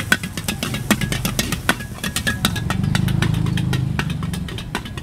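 Metal ladle and spatula clanging and scraping against a steel wok in quick, uneven strokes during a stir-fry, over the steady rumble of a high gas wok burner. A low engine drone swells in the middle.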